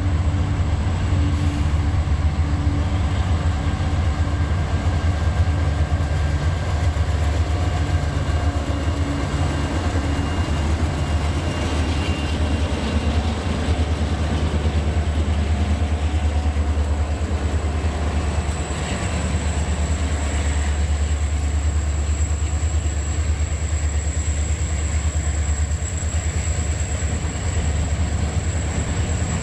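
Several diesel-electric freight locomotives running past close by, a heavy, steady low engine rumble that does not let up, with a thin high whine that grows stronger in the second half.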